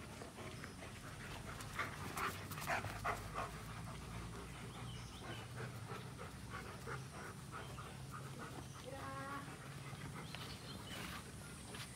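Alaskan malamutes panting and moving about, with a run of short, sharp breaths between about two and three and a half seconds in. Around nine seconds in, one gives a short pitched whine.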